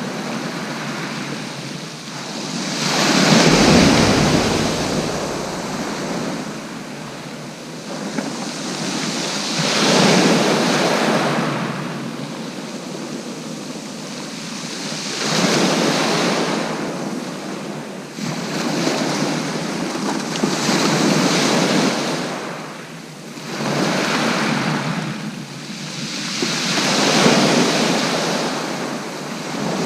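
Sea waves breaking on the beach in slow swells every five or six seconds, each rising and falling away.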